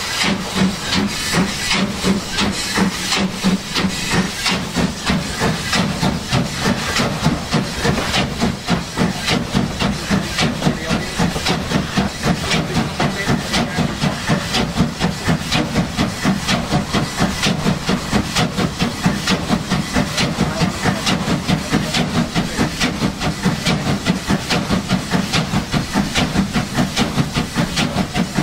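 Steam locomotive 23 023, a two-cylinder DB class 23, chuffing from its exhaust in a regular beat that settles into a quick, even rhythm after the first few seconds. Steam hisses from the open cylinder drain cocks near the start.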